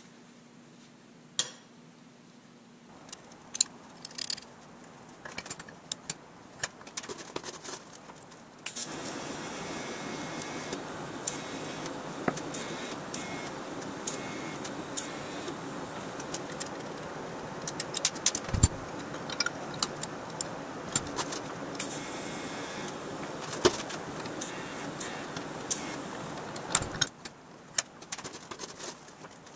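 Metal parts clinking and clicking as they are handled at a bench vise, then a TIG welding arc hissing steadily with small crackles from about 9 s in until it stops near the end, as a machined bushing is welded onto a steel engine-mount bracket. A few more clinks follow.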